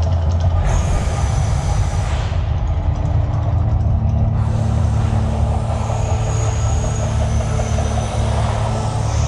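A loud, steady deep rumble with a hissing rush laid over it for about a second and a half near the start, and again from about four and a half seconds in.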